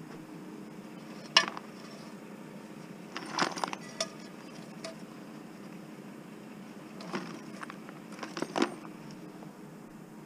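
Scrap metal clinking and clattering as pieces are handled in a bucket holding nails: one sharp clink about a second in, the loudest, then short bursts of clinks around three to four seconds in and again around seven to eight seconds, over a low steady hum.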